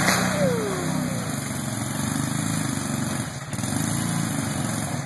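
Small engine of a monster-truck go-kart running under load as it drives through a creek and up the bank, its speed rising and falling.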